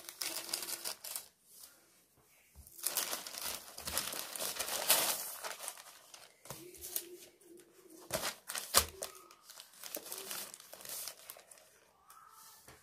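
Plastic courier mailer bag crinkling and rustling as it is handled and cut and torn open, in irregular bursts that are loudest around four to five seconds in, with a sharp click near nine seconds.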